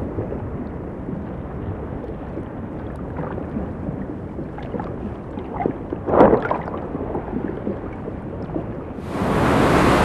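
Low, muffled underwater rumble, with a short swish about six seconds in. About nine seconds in it gives way to the louder, hissing wash of ocean surf breaking on a rocky shore.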